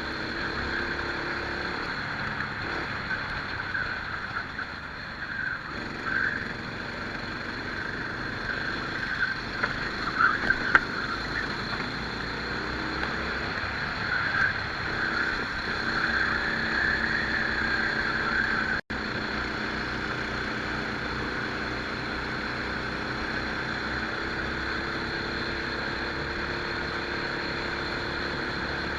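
Rental kart engine running at speed, recorded onboard, its pitch rising and falling as the driver accelerates and lifts. There are a few sharp loud knocks about ten seconds in, and the sound cuts out for an instant about two-thirds of the way through.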